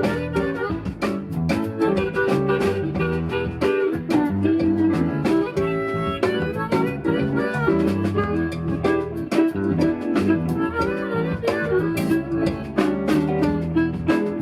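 Live blues-rock band playing an instrumental passage with no singing: guitar over a drum kit keeping a steady beat.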